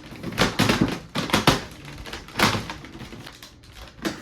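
Irregular clicks and knocks of a flathead bit screwdriver working against the hard plastic of a Nerf gun, in a few short clusters.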